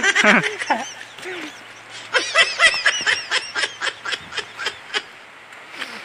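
Laughter: a short voiced outburst at the start, then a run of about a dozen quick laughs, about four a second, from about two seconds in, dying away near five seconds.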